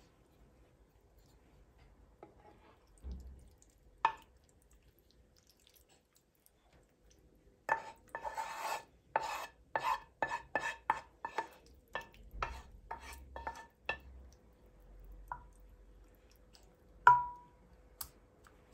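A cooking utensil scraping and knocking minced meat out of a non-stick pan into a glass baking dish. A run of quick scrapes and taps, about two a second, each with a short ringing tone, then spreading. One loud, ringing knock near the end.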